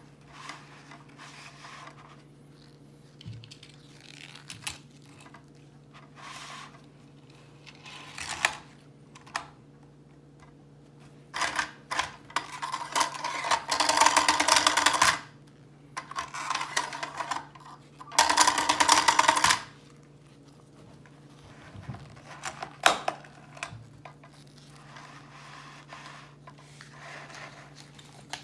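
Plastic toy packaging being handled and opened: scattered clicks and taps, with two loud stretches of crinkling plastic, one near the middle and a shorter one a few seconds later.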